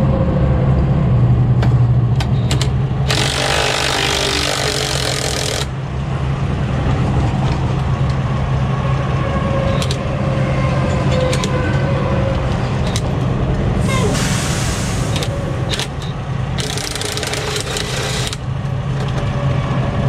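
A diesel truck engine idles steadily underneath. A cordless drill is run against a bolt in bursts of one to three seconds: about three seconds in, again around fourteen seconds, and once more near the end. Its owner thinks the drill's battery is dying.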